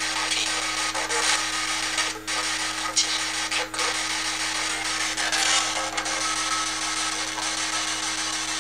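PSB7 ghost box radio sweeping through stations: a continuous hiss of radio static, chopped by a few brief gaps and blips, over a steady low hum.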